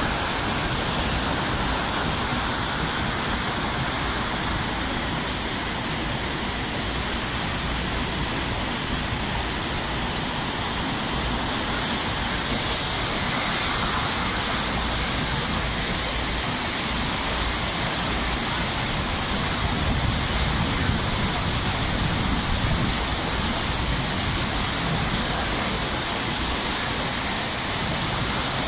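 Steady, loud rush of water from a FlowRider surf simulator, with pumped water pouring continuously in a thin sheet up the padded wave ramp.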